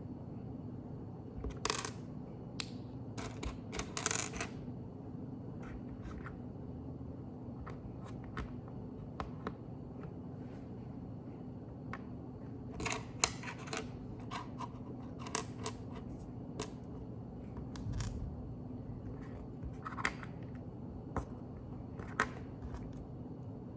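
Plastic Lego pieces clicking and rattling as they are handled and snapped together: irregular sharp clicks with a few short rustles, over a steady low hum.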